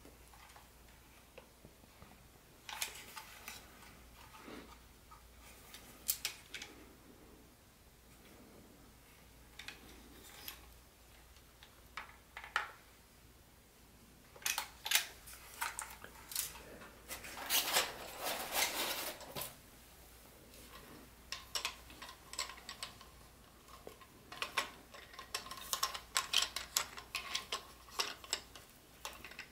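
Handling noise from a plastic toy steam locomotive and its tender being turned over in cotton-gloved hands: scattered light clicks and taps of plastic, with short bursts of glove-on-plastic rustling, busiest in the second half.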